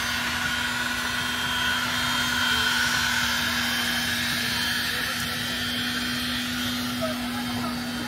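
A steady mechanical hum with a constant low drone, over faint voices.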